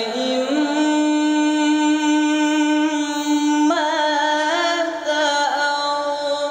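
A teenage male qari reciting the Quran in the melodic tilawah style into a microphone: one long held note for about three seconds, then wavering ornamented runs up and down in pitch.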